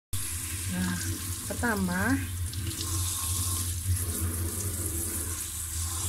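Kitchen faucet running steadily, its water splashing over lettuce leaves as they are rinsed by hand in a stainless steel sink.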